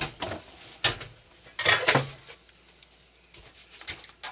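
Cookware being handled: a few separate knocks and clinks of a frying pan and a ceramic bowl, the loudest about two seconds in, then lighter clicks near the end.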